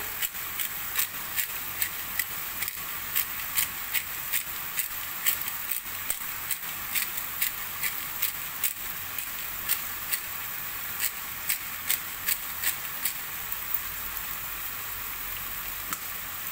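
Minced beef sizzling in a frying pan: a steady hiss with many sharp clicks, two or three a second, that thin out near the end.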